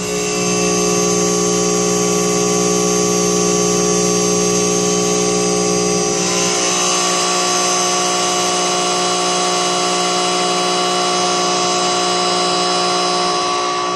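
Electrical static: a steady hiss with many humming tones layered through it, heavily reverberated so it sounds like it is playing on a stage. The pitch of the tones shifts about six seconds in.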